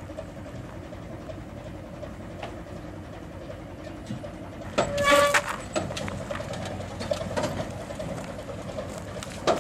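Crawler crane's engine running steadily under load as it lifts a catamaran hull. About halfway through comes a brief, loud, high-pitched tone.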